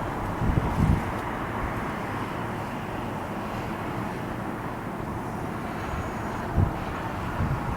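Distant aircraft overhead: a steady, even roar, with wind buffeting the microphone in low thumps near the start and again about two-thirds through.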